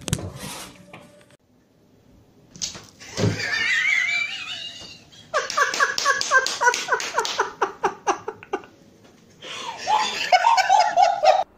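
A person laughing hard in rapid ha-ha-ha bursts, starting with a high wavering squeal and coming in two long fits. A short noisy burst is heard right at the start.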